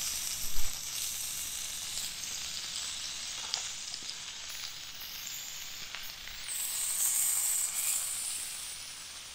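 Bacon, sausage and black pudding sizzling in a hot cast-iron skillet over a wood-burning stick stove, a steady hiss, with a short knock about half a second in. The sizzle swells about seven seconds in as cherry tomatoes go onto the pan.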